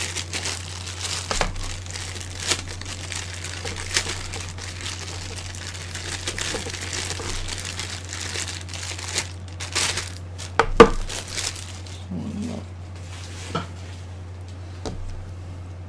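Plastic packaging bags crinkling and rustling as cables are unwrapped from them, with scattered small clicks and a sharp knock about eleven seconds in. The rustling dies down near the end, over a steady low hum.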